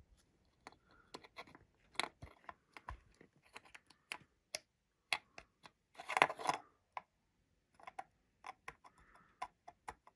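Irregular small clicks and taps from handling a decased flight-controller board and its case, with a short rustle about six seconds in.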